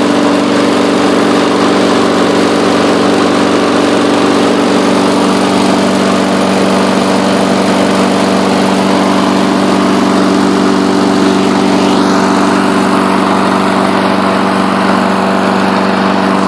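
Push lawn mower engine running steadily at a constant speed, its exhaust feeding a homemade fogger that is putting out thick fog.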